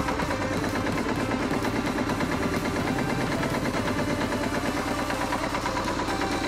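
Yanmar 2GM20 two-cylinder marine diesel idling with a steady, rapid diesel clatter. It is on its test run after its raw-water pump impeller was replaced.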